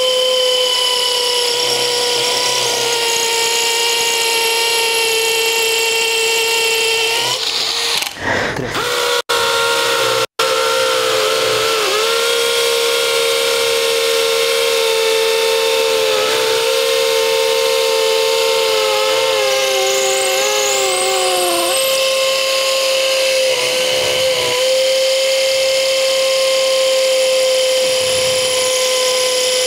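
Two Makita cordless hammer drills, the 40V HP001G and the 18V XPH07, running at the same time in hammer-drill mode with 3/8-inch bits, giving a steady high whine. The whine of one drill falls in pitch and stops about two-thirds of the way through, while the other keeps running.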